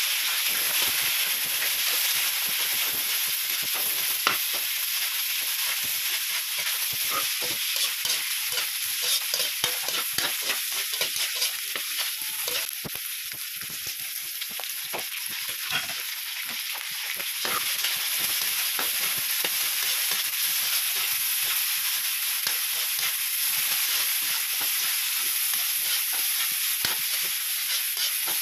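Chicken breast cubes sizzling in hot oil in a wok while a metal spatula stirs them, with a steady hiss and frequent clicks and scrapes of the spatula against the pan.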